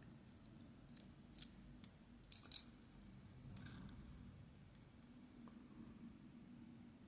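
Small metal lock parts being handled while a pin-tumbler lock cylinder is taken apart: a few light clicks about a second and a half in, and a short cluster of clicks around two and a half seconds.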